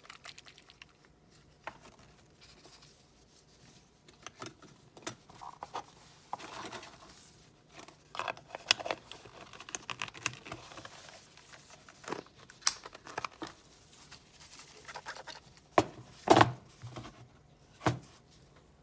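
Irregular light knocks, clicks and scrapes of hard objects being handled, with a louder cluster of knocks about sixteen seconds in.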